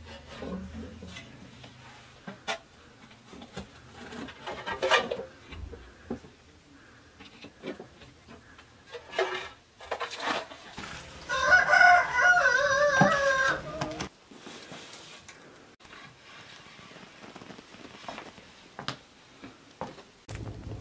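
A rooster crows once, loudly, a long wavering call of nearly three seconds just past the middle. Around it come scrapes and clinks of ash and charcoal being scooped out of a floor tandoor into an aluminium basin with a metal dustpan.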